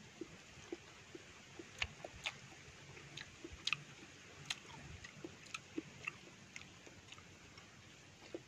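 Close-up mouth sounds of a person chewing santol fruit: irregular small wet clicks and smacks, a few each second.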